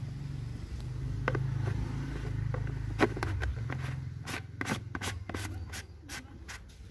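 Yellow plastic screw cap being fitted and screwed down onto a knapsack sprayer tank: a run of sharp clicks and scrapes in the second half, over a steady low rumble.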